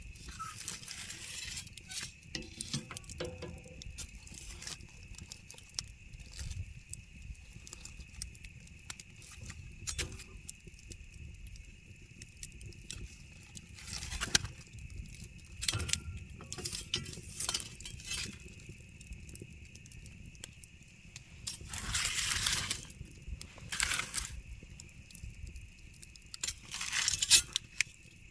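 Campfire crackling and popping, with irregular sharp snaps over a steady high tone, and a few louder rushing surges in the second half.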